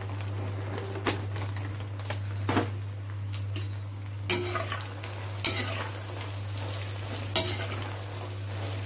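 A metal spatula scrapes and knocks against an aluminium kadhai as makhana (fox nuts) are stirred and fried in ghee. There are five sharp clanks spread through it, the loudest in the second half, over a faint sizzle.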